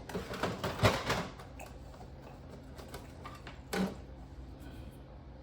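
A quick run of small clicks and knocks, loudest a little under a second in, then a single knock near four seconds, over a faint steady hum.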